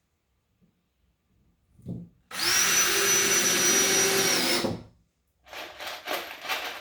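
Drill driver driving a screw to fasten the covering to the frame, its motor running at a steady pitch for about two and a half seconds and winding down as it stops. Handling knocks and clatter follow near the end.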